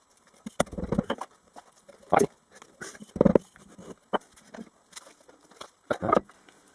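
Hands working moulding sand into a tin-can mould on a wooden board: sand scooped and dropped in, packed down with a wooden block, and the board handled. The sound is a series of short thumps and scuffs, the loudest about two and three seconds in and again near the end.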